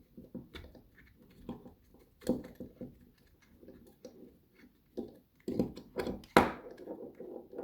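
Small metal clicks, scrapes and knocks of a large ABUS 83/55 padlock being worked by hand as the set screw in its shackle is undone to free the core, with a sharper knock about two seconds in and a louder one past six seconds.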